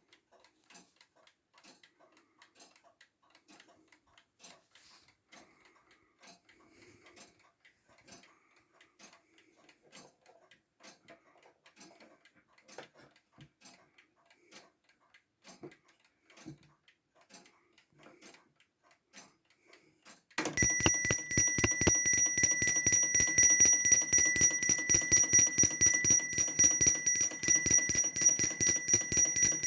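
Hamburg American Clock Co. Black Forest alarm clock with a 30-hour balance-wheel movement, ticking faintly and evenly. About twenty seconds in, its alarm goes off suddenly and much louder: a hammer rapidly striking the bell in a continuous ring.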